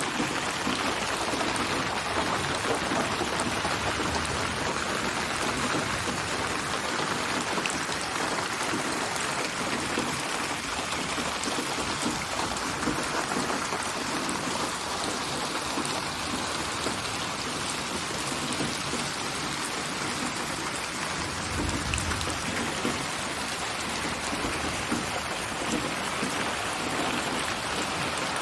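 Steady rain falling on surfaces, a dense even hiss of many drops, from a synthesized rain soundscape built from recorded rain samples and spatialised in 8D to seem to come from around the listener. A brief low rumble comes about two-thirds of the way in.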